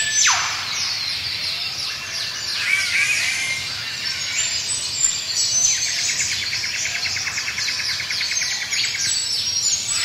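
Tropical rainforest dawn chorus of many birds chirping and whistling together. An eastern whipbird's whip-crack, a sharp downward sweep, comes right at the start. A rapid, even trill runs for about three seconds in the second half.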